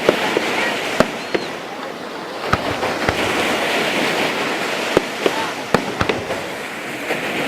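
Fireworks display: irregular sharp bangs of bursting shells, about a dozen, some close together, over a continuous crackling hiss, with a couple of brief whistles.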